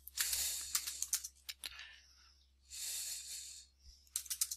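Computer keyboard typing: a run of keystrokes, a pause holding a soft hiss of about a second, then a few more keystrokes near the end.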